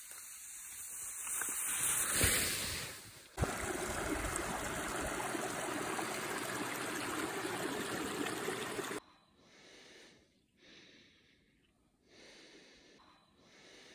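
Skis hissing over snow, growing louder as a skier comes down and passes, then a small brook rushing steadily over rocks, cut off suddenly about nine seconds in. After that, a person breathing, three slow breaths.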